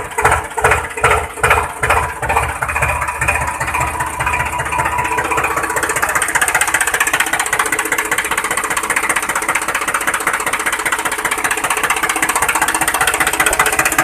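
Dubbed-in sound effect of a diesel tractor engine: heavy, slow chugs about two to three a second for the first few seconds, then settling into a steady, fast putter.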